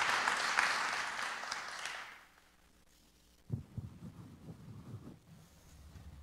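Audience applauding, fading out about two seconds in. Then a few low thuds and rustles as a chair is pulled out and sat in.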